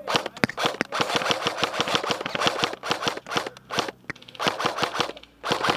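Airsoft guns firing in rapid bursts of sharp cracks: one long burst of about three seconds, then shorter bursts near the end.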